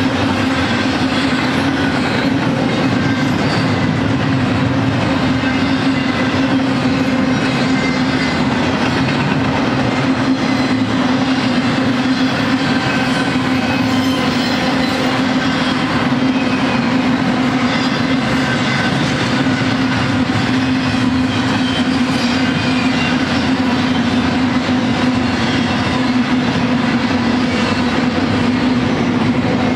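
Double-stack intermodal container cars of a BNSF freight train rolling past, their wheels on the rails making a steady, unbroken rumble with a constant low hum running through it.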